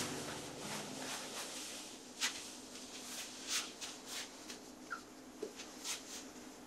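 Soft rustling and brushing of kimono fabric being smoothed and adjusted by hand, a series of brief swishes over a faint hiss. A music track fades out in the first moment.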